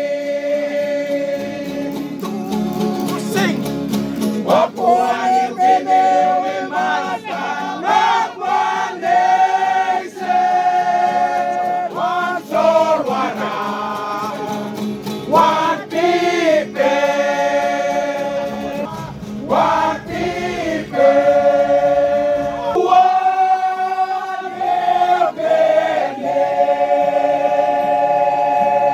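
Papua New Guinea stringband song: several voices singing together in harmony over strummed string accompaniment.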